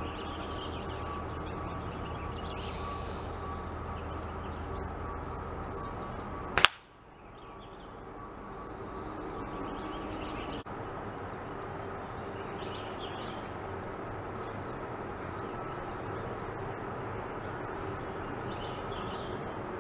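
A single sharp crack from a .177 air-rifle shot about six and a half seconds in, the loudest thing by far, over steady outdoor background noise with a few faint bird chirps.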